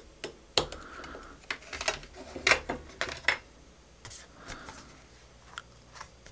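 Scattered sharp clicks and taps with a few short scrapes, from a screwdriver prying at the rim of a round LED ceiling panel and its front cover being lifted out of the frame.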